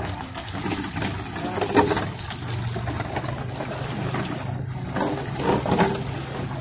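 Water sloshing and gurgling in a large cast-iron cauldron as plastic bottles are poured into it and dipped under the surface, over a steady low hum that starts a couple of seconds in.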